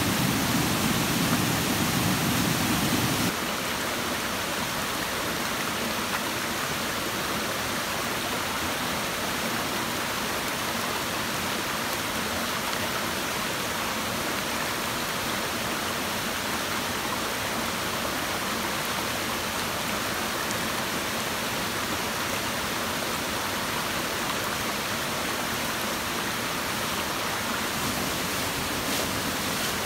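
Shallow stream water running over rock slabs and a small cascade, a steady rushing hiss. About three seconds in it becomes quieter and loses its deeper rumble.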